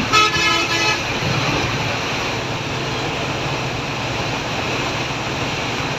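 A multi-tone vehicle horn sounds in a quick string of short blasts during the first second, then the steady engine and road noise of a moving bus, heard from inside its cabin.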